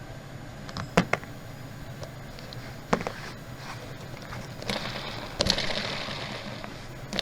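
A few sharp clicks and knocks, then a few seconds of scraping and rustling: hands handling a suitcase and its wheel assembly during a wheel replacement.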